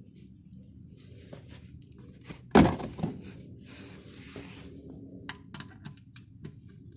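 Hands working with tools and parts under a car: scattered light clicks and scrapes, and one loud thunk about two and a half seconds in, followed by a smaller knock.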